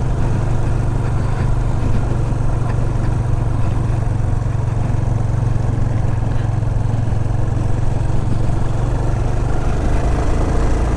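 Yamaha Fazer 250's single-cylinder engine running steadily under light throttle as the motorcycle climbs a steep hill at low speed, with the rumble of its tyres over cobblestones.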